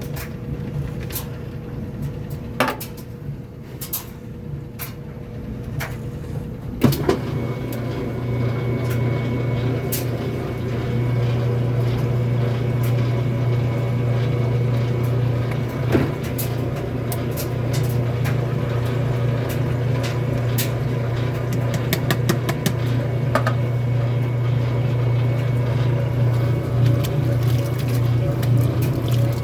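Kenmore washing machine clicking, then about seven seconds in a motor switches on with a knock and runs with a steady low hum.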